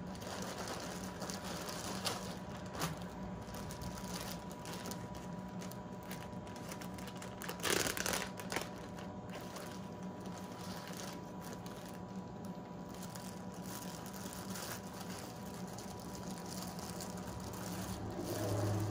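Plastic zip-top bag crinkling and rustling as it is opened and the plastic-wrapped parts inside are handled, loudest about eight seconds in, over a steady low hum.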